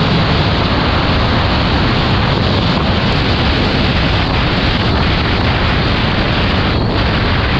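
Loud, steady rush of wind buffeting the microphone on a motorcycle riding at speed.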